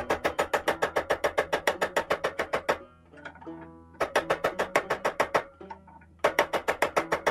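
Rapid hammer blows on a bolt clamped in a steel bench vise, driving the bolt into a 9 mm pistol shell casing. There are three runs of quick strikes, about nine a second, with short pauses about three seconds in and again near the end.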